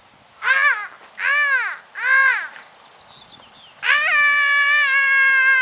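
Cat meowing: three short meows that each rise and fall in pitch, then one long, drawn-out meow near the end.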